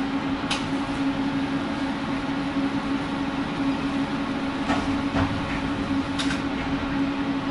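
Tram standing at a stop, its onboard equipment giving a steady low hum over an even background noise, with a few light clicks.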